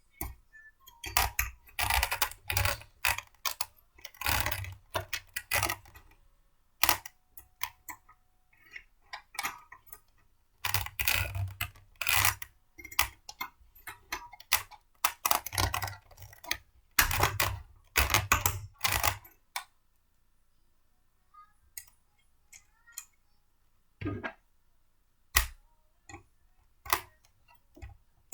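Blender parts being handled and fitted together: irregular clicks, knocks and rattles, dense at first and thinning to a few isolated clicks near the end, with the motor not running.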